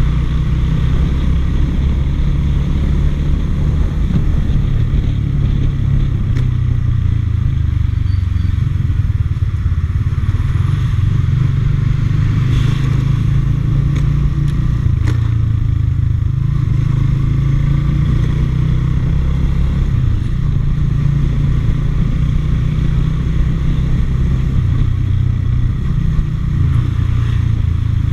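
Motorcycle engine running steadily while riding, a loud low rumble whose pitch shifts now and then as the engine speed changes, heard through an action camera's microphone.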